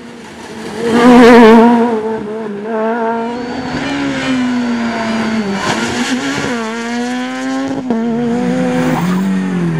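Rally car engines running hard on a special stage. A Suzuki Swift rally car passes close about a second in at full throttle, the loudest moment. After that, further cars rev and change up through the gears, the engine note rising and dropping several times.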